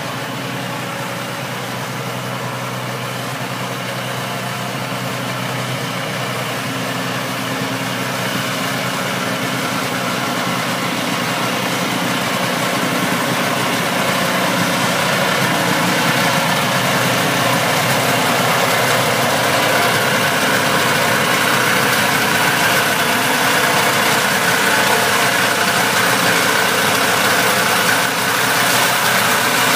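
1973 Ski-Doo Elite snowmobile's two-stroke engine idling steadily, growing louder over the first half.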